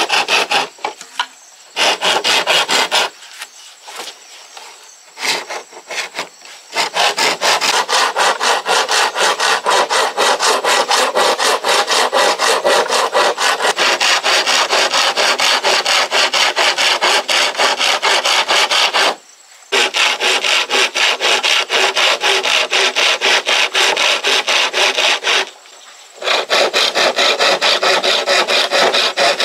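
Hand saw cutting through bamboo in fast, even back-and-forth strokes, about four or five a second. It starts in a few short runs, then goes steadily with two brief stops.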